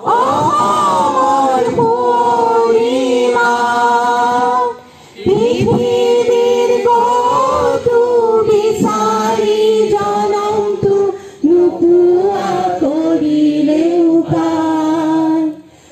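A group of women and men singing a slow song together in unison, with long held notes. The singing breaks off briefly about five seconds in and again near the end.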